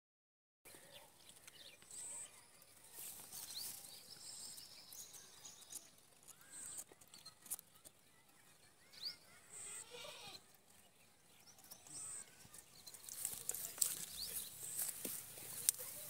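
Alexandrine parakeets making faint short chirps and squawks, getting busier near the end with a run of sharp clicks.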